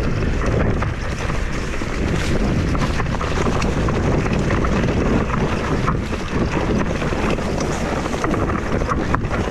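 Wind rushing over the microphone of a mountain bike ridden fast downhill on an Ibis Mojo HD4. Tyre noise runs underneath, with scattered clicks and rattles from the bike on the rough trail.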